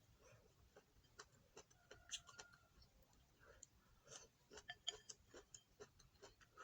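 Faint eating sounds: scattered small clicks and taps of someone eating a meal, several a second at uneven intervals.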